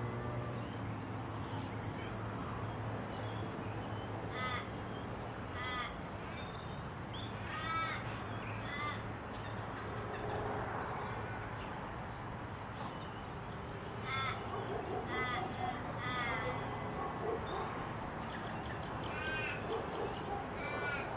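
Crows cawing: about ten short, harsh calls, some in quick pairs or threes, scattered through, over a steady low background hum.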